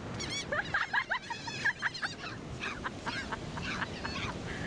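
A flock of gulls calling: many short, overlapping squawks and cries.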